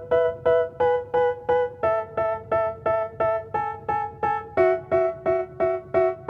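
Background music: piano chords struck in a steady repeating pattern, about three a second, shifting to a new chord twice.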